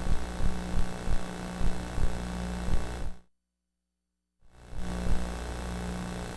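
Steady electrical hum on the audio line, with faint knocks about twice a second. The sound cuts out completely for about a second after the three-second mark, then the hum comes back.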